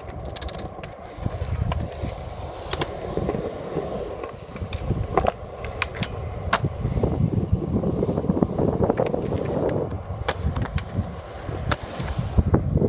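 Skateboard wheels rolling over a concrete skatepark surface, a continuous rumble broken by many sharp clicks and knocks.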